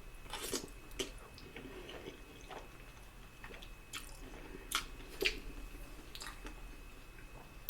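Close-up chewing of a mouthful of spaghetti: irregular wet mouth clicks and smacks.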